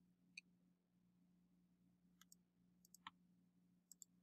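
Near silence with a few faint, scattered computer mouse clicks over a faint steady low hum.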